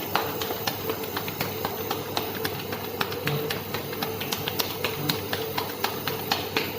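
Rapid, irregular clicking taps over a steady low hum.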